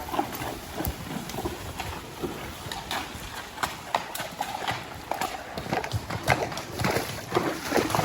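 Spotted saddle horse's hooves clip-clopping in a quick, continuous run of hoofbeats, growing louder near the end.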